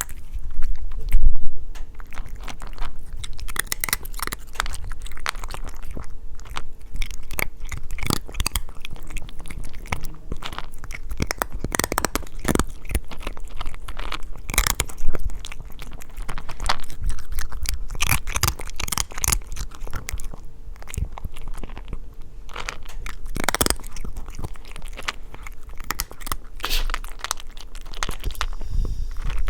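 A cat eating its food, chewing with irregular crunches and clicks, a few of them louder.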